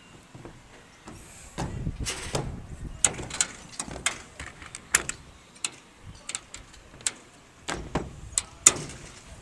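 Irregular sharp knocks and clanks on metal roofing sheets during roof work, starting after about a second and a half of quiet and going on at uneven intervals.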